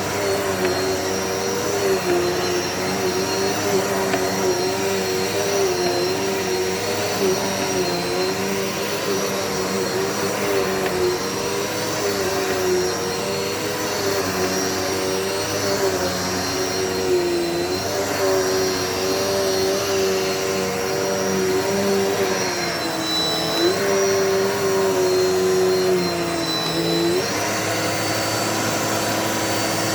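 Dirt Devil Multi-Surface vacuum cleaner running continuously, a motor hum with a high whine whose pitch wavers and dips briefly now and then as the nozzle is worked over the floor, then holds steady near the end.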